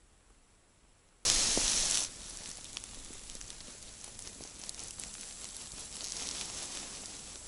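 Close rustling and crackling of a winter jacket and gloves rubbing near a body-worn camera's microphone. It begins suddenly with a loud burst of rubbing about a second in, then settles into a steady crackly hiss with many small clicks.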